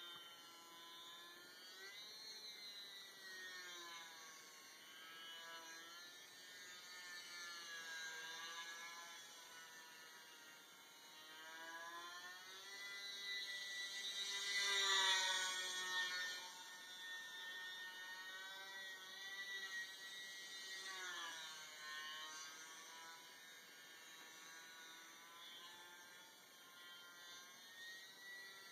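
Electric motor and propeller of an E-flite UMX Yak 54 micro RC aerobatic plane whining in flight, the pitch rising and falling again and again as it manoeuvres. It is loudest about halfway through, when the plane flies closer.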